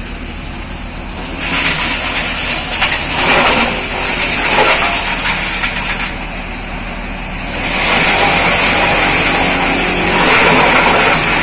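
Electric motor and hydraulic pump of a silage packing press running with a steady hum. Stretches of loud rustling noise come over it, the longest in the second half.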